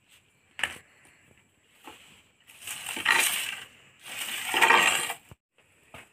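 A sharp knock, then two long, loud crunching rustles of dry bamboo leaves and scraps pushed across the floor by hand.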